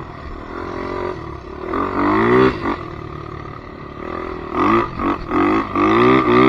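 Polaris Predator 500 ATV's single-cylinder four-stroke engine revving. The pitch climbs about two seconds in, drops back to a lower, quieter running note, then climbs again in several quick rises in the last couple of seconds.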